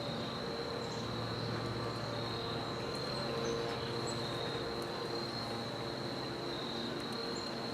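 Insects trilling: a steady, high-pitched outdoor chorus, over a faint low hum.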